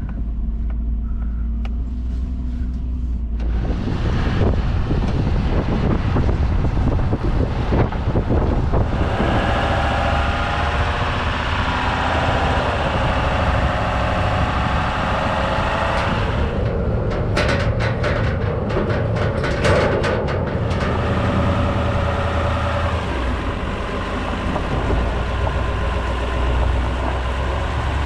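Pickup truck towing a livestock trailer, its engine and road noise running steadily and getting louder a few seconds in as it gets under way. A burst of rattling knocks comes about two-thirds of the way through.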